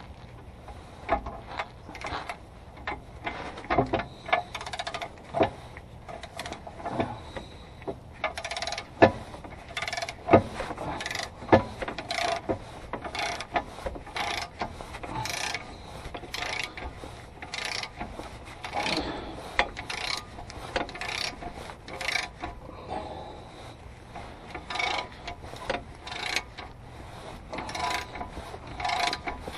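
Hand ratchet wrench clicking in repeated runs as the torque arm bolts are run in and tightened.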